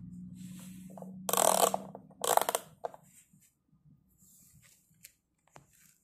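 A plastic toy vacuum being handled: two loud rattling clatters in the first half, then a few scattered light clicks and soft rustles.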